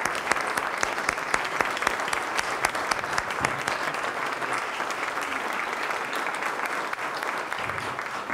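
Steady applause from a large audience, many hands clapping.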